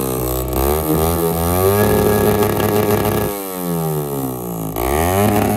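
Motorcycle engine revved through its exhaust: it climbs and holds high, drops back a little past halfway, then is blipped up again near the end.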